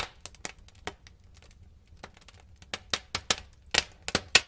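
A rapid, irregular string of sharp clicks and crackles over a faint low hum.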